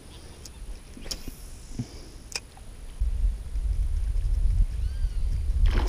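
Rod-and-reel handling during a cast: a few sharp clicks in the first couple of seconds, one followed by a brief high hiss. From about halfway, a low rumble that grows steadily louder.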